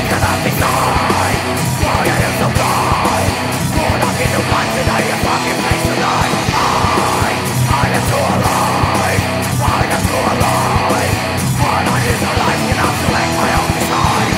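Loud nu-metal / groove-metal band music from a demo recording, with drums keeping a steady driving beat under a dense wall of band sound.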